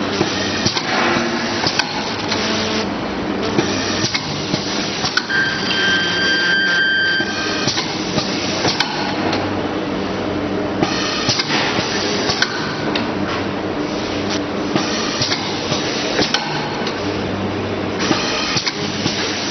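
Triangle (pyramid) tea-bag packing machine running: a continuous clatter of mechanical clicks and knocks, with a brief high steady tone from about five to seven seconds in.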